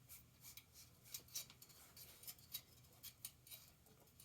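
Faint, irregular scratchy ticks and rustles of cable housing being handled and fed into a bicycle frame's internal routing, over a low steady hum.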